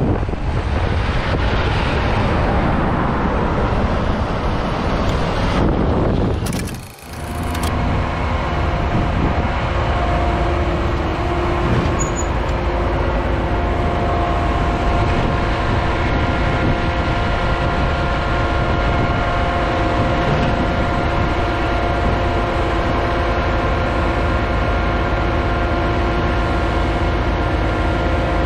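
City road traffic passing, then after a cut about seven seconds in, the steady drone of a concrete mixer truck and a boom concrete pump truck running side by side, their diesel engines held at a constant speed.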